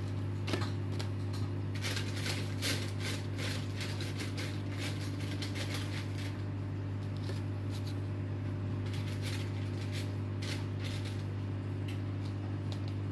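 Steady low hum from a kitchen appliance, with many light clicks and scrapes as food is dished onto a plate.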